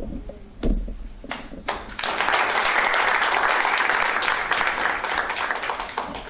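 A congregation clapping and applauding, starting suddenly about two seconds in and dying down near the end. A single low thump and a few scattered claps come before it.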